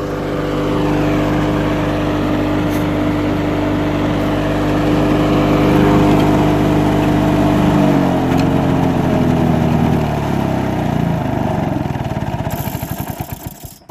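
Lawn-Boy Quietflite C-series two-stroke mower engine running steadily, then dropping in pitch about eight seconds in and coasting down with slowing separate beats until it stops near the end. This muffled Quietflite version runs at least 10 decibels quieter than the regular C engine.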